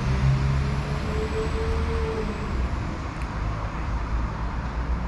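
Diesel train engine running with a steady low rumble, a faint whine rising in pitch over the first couple of seconds.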